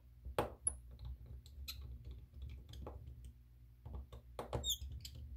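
Irregular small clicks and taps of a precision screwdriver unscrewing tiny screws from a Samsung Galaxy S10+ phone, over a steady low hum.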